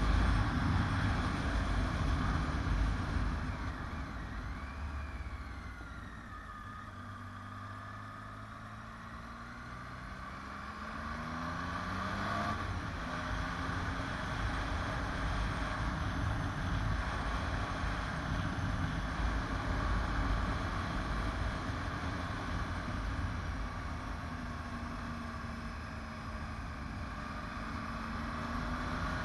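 Motorcycle engine running on the road under way, mixed with wind and road noise. The engine note rises and falls with the throttle. It goes quieter for a few seconds in the middle, then picks up again.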